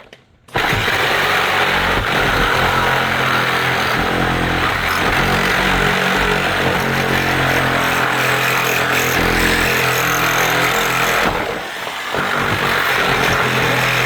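A loud motor-driven tool starts abruptly half a second in and runs steadily, easing off briefly about eleven seconds in before picking up again.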